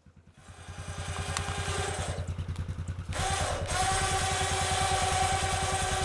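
A small engine running with an even, rapid pulse, growing louder about half a second in; about three seconds in a steady higher whine joins it and it runs on at full level.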